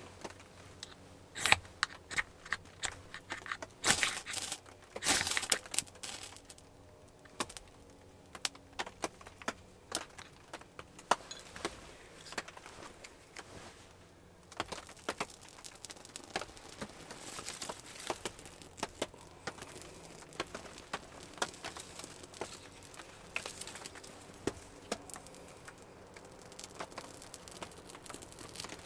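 Hands crinkling and tearing curls of dry bark and wood shavings to make fire tinder: a busy run of sharp crackles, snaps and scrapes, loudest in the first few seconds.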